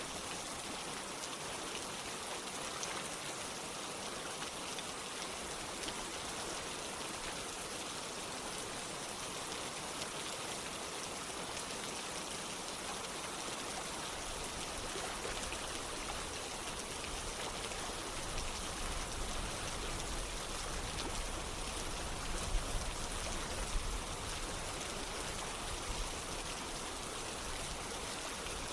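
Steady rain together with running water: a dense, even hiss scattered with the ticks of single drops. A low rumble comes in about two-thirds of the way through.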